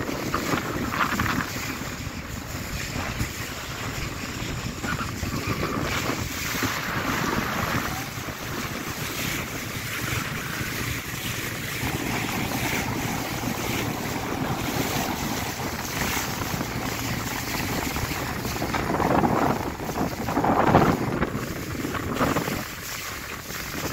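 Small boat under way on open harbour water: wind buffeting the microphone over water rushing and splashing along the hull, a steady noise that swells louder a few times, most strongly near the end.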